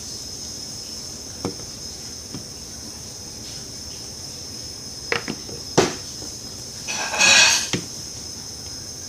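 A steady high-pitched hiss runs under a few sharp clicks and knocks, with a short rustling burst about seven seconds in.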